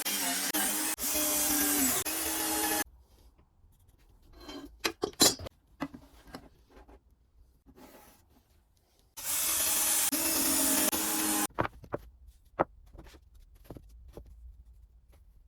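A power tool working wood runs for about three seconds, cuts off, and runs again for about two seconds near the middle. Between the runs come light knocks and taps of wood being handled, with one sharp knock about five seconds in.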